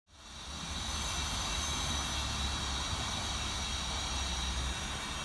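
Compressed air hissing steadily from a Craftsman portable air tank's hose chuck into a tire valve as the tire is inflated, with a faint thin whistle in the hiss and a low rumble underneath.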